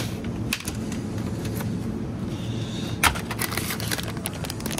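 Steady low hum of a supermarket's chiller aisle. About three seconds in comes a burst of clicks and plastic crackling as a bag of grated cheese is pulled off the shelf and handled over a plastic shopping basket.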